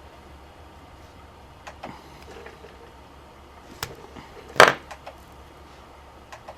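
Wire cutters clicking and snipping at the insulation of a thin power-adapter cable as the inner wire is stripped bare. A few light clicks and one sharp snap, the loudest, about four and a half seconds in, over a low steady hum.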